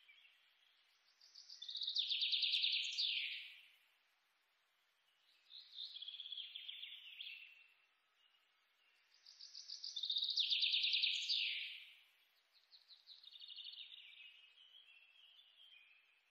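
Felt-tip marker squeaking across paper in four separate strokes, each a second or two of high, rapidly pulsed squeaking, the first and third ending in a quick falling squeal.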